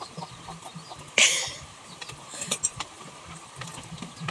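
Spoons and forks clinking lightly on plates during a meal, with one short, loud hiss about a second in.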